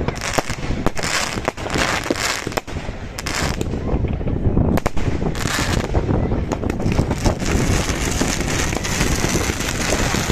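Fireworks going off: a rapid, irregular series of bangs and crackles, which blur into a dense continuous crackling wash in the last few seconds.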